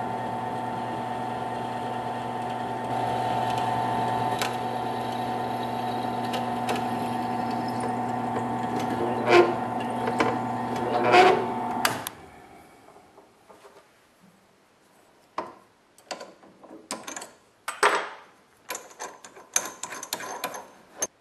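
Benchtop drill press motor running with a steady whine while a set screw in its chuck is drilled through on a 5/64 in bit, with two louder scraping bursts of the bit cutting about nine and eleven seconds in. The motor is switched off about twelve seconds in, followed by scattered clicks and knocks of the chuck being handled.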